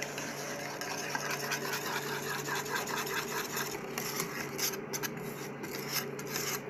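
Wire whisk stirring batter in a small metal saucepan, scraping and swishing against the pan in quick, even strokes. The batter is being whisked into the butter-and-milk mixture.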